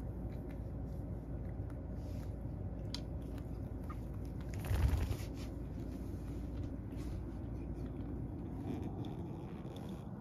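Cat crunching dry kibble from a wooden dish, with small scattered ticks. About five seconds in there is a single louder thump, over a steady low hum.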